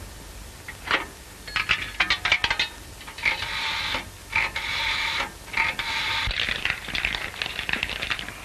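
Rotary dial of a wall telephone clicking as a number is dialled, then an electric telephone bell ringing in bursts with short gaps, starting about three seconds in.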